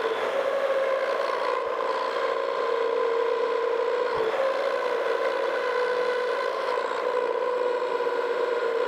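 Wells-Index vertical milling machine running, its end mill contour-milling a radius corner on a metal bearing wedge. The sound is a steady mechanical whine with small shifts in pitch, sped up along with the footage.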